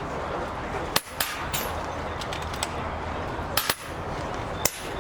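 PCP air rifles firing on a benchrest line: about six sharp cracks at irregular intervals, two of them close together near the middle, over a steady background hiss.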